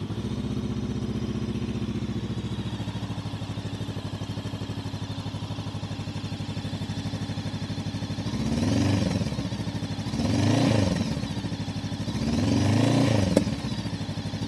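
Motorcycle engine idling steadily, then revved in three short throttle blips about two seconds apart, heard in a semi-anechoic test room with no echo.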